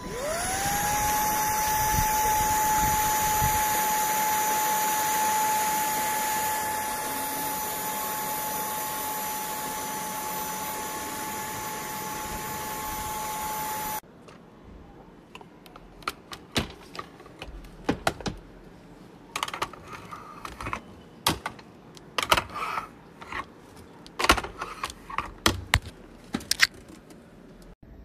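Morse G7 cordless stick vacuum's motor spinning up with a rising whine, then running steadily with a high whine over a rush of air. About halfway through the motor sound stops abruptly, and a run of sharp clicks and knocks follows.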